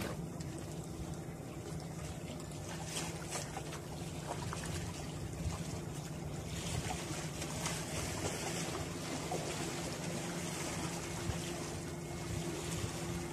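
Steady low drone of a boat engine running out on the water, under the wash of waves against breakwater rocks and wind.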